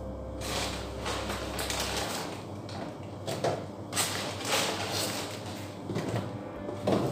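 Food containers and plastic bags being shifted about on the shelves of an open refrigerator: a run of uneven knocks, clatters and rustles.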